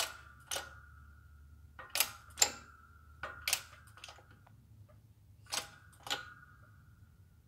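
Shop press being worked against a factory LS1 rocker arm trunnion: four pairs of sharp metal clicks, each with a short ring, a second or two apart, as the ram is pumped down on the trunnion to press it out.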